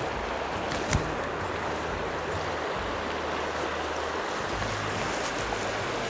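Mountain stream running: a steady rush of flowing water, with one short sharp click about a second in.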